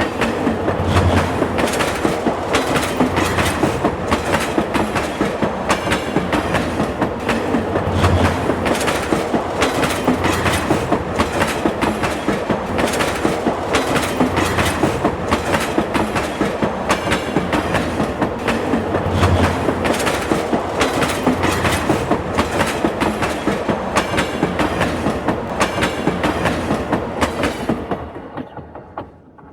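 Subway train running on the rails, a loud steady noise with a fast clickety-clack of wheels over rail joints, about two to three clacks a second. It fades away quickly near the end.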